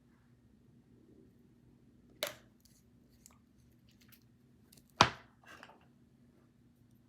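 Two sharp clicks or knocks from something being handled, about three seconds apart, the second much louder, with a few faint ticks between them over a low steady hum.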